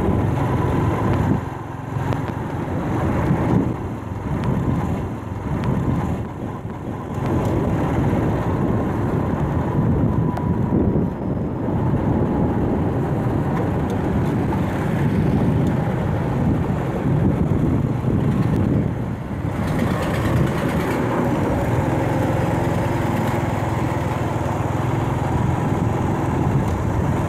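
Steady engine and road noise of a vehicle moving along a city street, with traffic around it.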